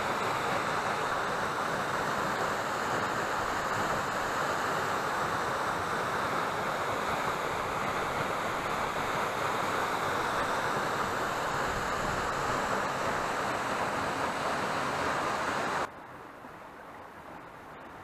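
A waterfall plunging into a pool: a strong, steady rush of falling water. Near the end it cuts off sharply to the quieter, even flow of a rocky stream.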